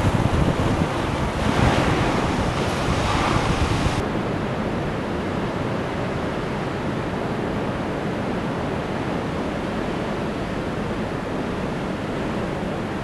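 Ocean surf washing and breaking against shoreline rocks, with wind noise on the microphone. It swells to a louder surge in the first few seconds. About four seconds in, it changes abruptly to a duller, steady rushing.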